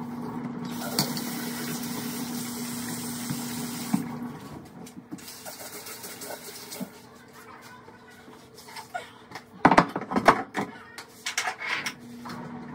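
Bathroom counter and sink being wiped and scrubbed by hand over a steady low hum. A cluster of knocks and clatter comes about ten seconds in.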